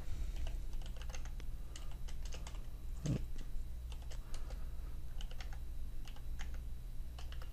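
Typing on a computer keyboard: irregular key clicks in short runs, with a brief low thump about three seconds in, over a steady low hum.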